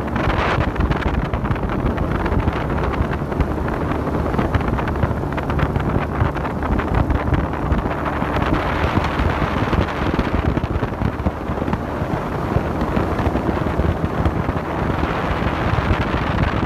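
Motorboat engine running steadily while the boat travels, with wind buffeting the microphone.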